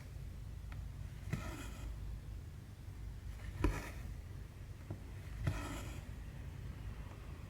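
Cross-stitch needle and floss being worked through the canvas. Three times, about two seconds apart, there is a sharp tick followed by a short rasp as the thread is drawn through, over a low steady hum.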